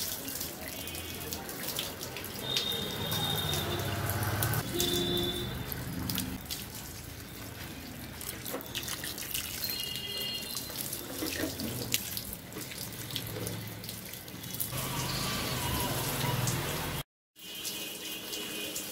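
Water from a hose pouring and splashing over potted plants, pots and a wooden shelf, in a steady running stream. The sound drops out briefly near the end.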